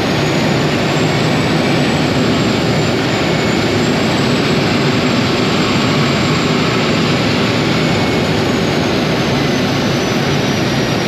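Float plane's propeller engine running steadily in flight, heard from inside the cabin as a constant, loud drone with no change in pitch.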